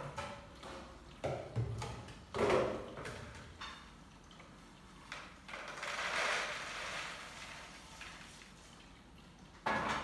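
Kitchen clatter: bowls, pots and plastic containers being knocked and set down on the counter, a few clunks close together in the first three seconds, the loudest about two and a half seconds in, and a rushing rustle lasting over a second around six seconds in.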